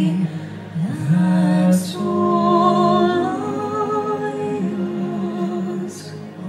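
Music with long held notes and a sung or hummed melody.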